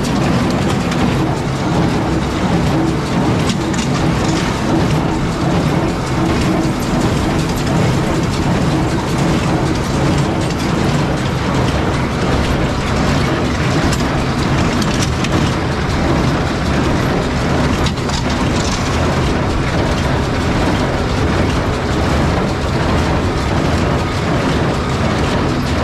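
John Deere small square baler running as it takes in a windrow of hay: a loud, steady mechanical clatter and rattle of its pickup, feeder and bale chamber over a steady machine hum.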